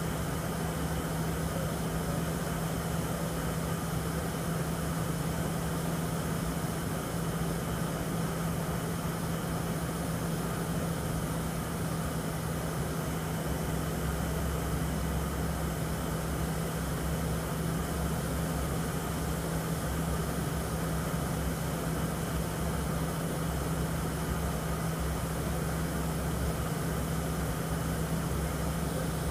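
Airliner cabin noise on final approach: a steady engine drone with a constant low hum and rushing airflow, heard from inside the cabin.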